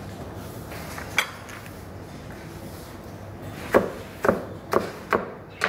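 A kitchen knife chopping green peppers on a cutting board: one sharp knock about a second in, then five more near the end, about two a second.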